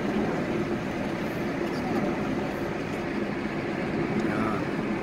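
Steady road and engine noise heard inside a car's cabin as it drives down a steep mountain road at about 60 km/h.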